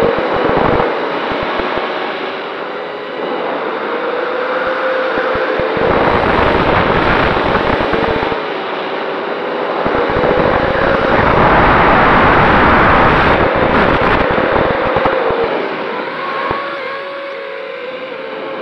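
MJX Bugs 3 quadcopter's brushless motors and propellers whining in flight, their pitch rising and falling with the throttle, with wind rushing over the onboard camera's microphone, loudest a little past halfway.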